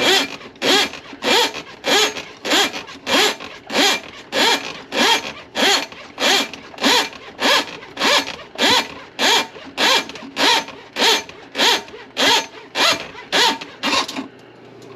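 Drain-cleaning machine's cable working back and forth in a grease-clogged kitchen sink drain line. It makes a rhythmic rasping stroke with a rising pitch about one and a half times a second, then stops about a second before the end.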